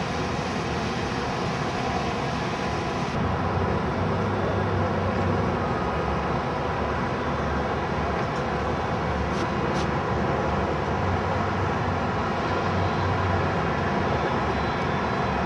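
Steady background noise: a continuous rumble and hiss with faint hums, with no distinct event standing out.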